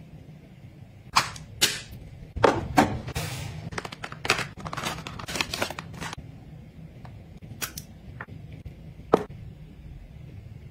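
Cosmetic bottles and caps handled on a hard vanity top, making sharp clicks and knocks. Four clicks come in the first three seconds. A denser patch of clicking and soft hiss follows, then a few more clicks near the end, over a faint low hum.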